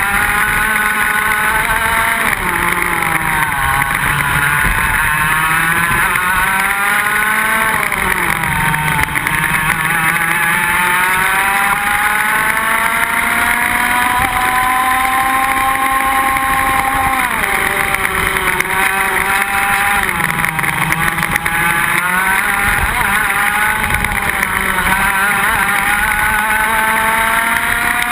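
Iame X30 125 cc two-stroke kart engine heard onboard at racing speed, its revs climbing along the straights and dropping sharply under braking for the corners several times. The longest climb runs for several seconds and ends in a sudden drop about two-thirds of the way through.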